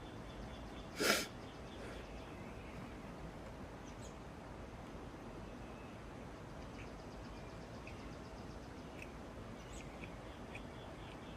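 Faint bird chirps over a low steady background, with one short sharp burst of noise about a second in.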